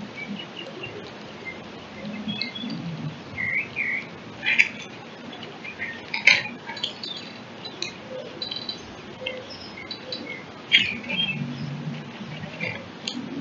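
Small songbirds chirping and calling in short, scattered high notes, with a few louder sharp chips.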